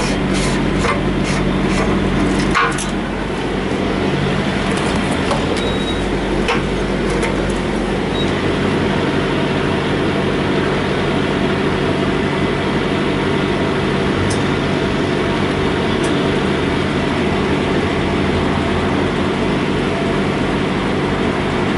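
Semi truck's diesel engine idling steadily. In the first few seconds there are several sharp clicks and one knock, while a gloved hand handles the trailer's hub cap.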